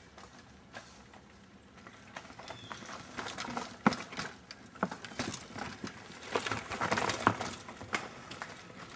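Mountain bike rolling over rough trail, with irregular knocks and rattles from the wheels and frame that get much busier about three seconds in.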